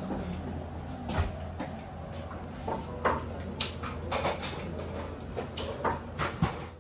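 Scattered knocks and clatter from a sushi chef working behind the counter, over a steady low kitchen hum.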